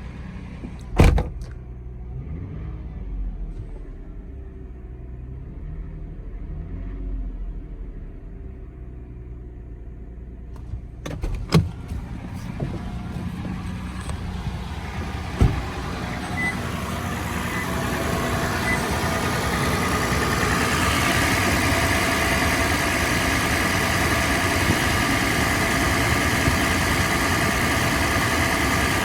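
Toyota 4Runner 4.0 V6 engine running cold, growing louder and fuller in the second half and staying at that higher level. There are a few sharp knocks about a second in, around eleven seconds and around fifteen seconds. A cold-engine rattle that gets faster with revs, which the owner takes for piston slap.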